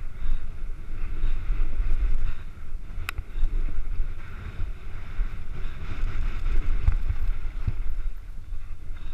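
Wind buffeting a helmet-mounted camera's microphone on a fast mountain-bike descent, over tyres rolling on a loose dirt and gravel trail. A sharp click about three seconds in, and a couple of fainter knocks later.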